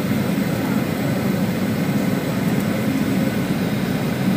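Steady cabin noise inside a Boeing 737-700 descending on approach to land: the low, even sound of its CFM56-7B engines mixed with air rushing past the fuselage.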